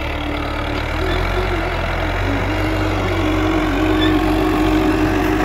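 Farm tractor's diesel engine running steadily under load while tilling a field, growing slightly louder as it comes closer.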